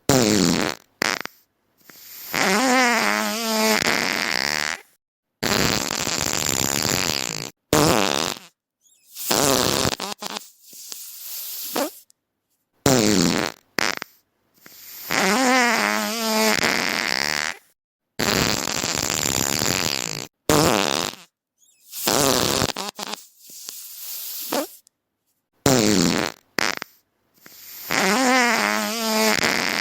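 A string of fart sound effects played one after another, separated by dead-silent gaps. Some are short blasts and others last two or three seconds with a wobbling, buzzing pitch.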